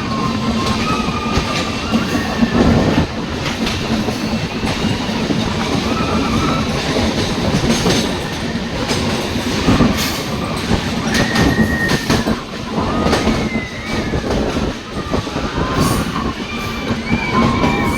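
A passenger train running on rails: a loud, steady rumble with repeated clicks of the wheels over rail joints, and thin, wavering high squeals of wheels on curves.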